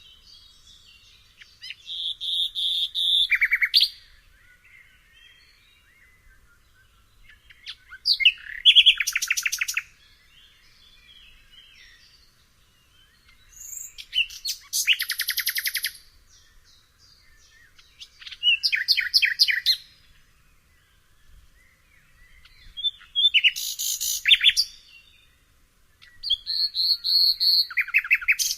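A nightingale singing: six short phrases of about two seconds each, separated by pauses of a few seconds. Each phrase mixes fast runs of rapidly repeated notes with a steady held whistle.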